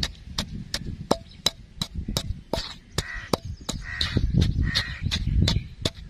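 Wooden pestle pounding a wet mash of soaked almonds and spices in a broad bowl, a steady knock about three times a second with a low grinding rumble. Birds call several times in the background.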